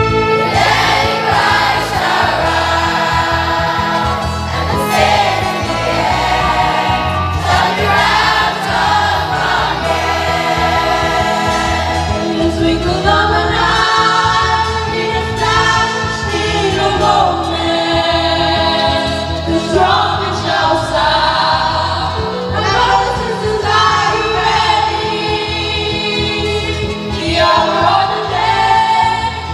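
Children's choir singing a gospel song in unison phrases over a steady instrumental backing.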